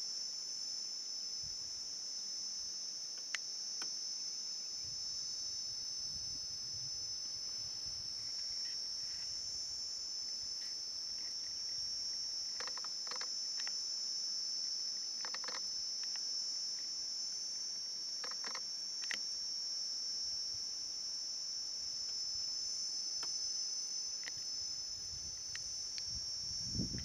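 Steady, unbroken high-pitched drone of an insect chorus, with a few short faint clicks around the middle.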